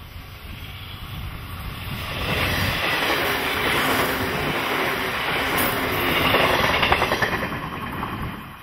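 A JNR 169-series express-type electric multiple unit passes close by at speed. The rumble and the clatter of wheels over rail joints build about two seconds in, stay loud, and fall away near the end.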